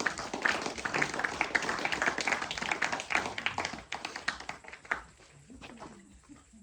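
A small audience applauding with many quick claps, dying away about five seconds in.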